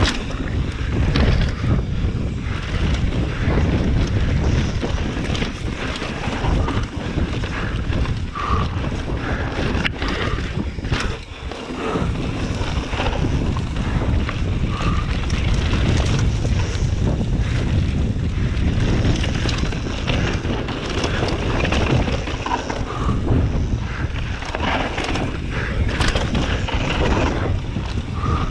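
Wind noise on the microphone of a mountain bike riding a dirt singletrack, with the tyres crunching over dirt and rocks and the bike rattling in frequent short knocks.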